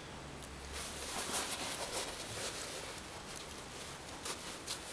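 Faint rustling of a nylon running jacket being handled as a small clip-on LED light is fastened to it, with a few small clicks from the light's clip.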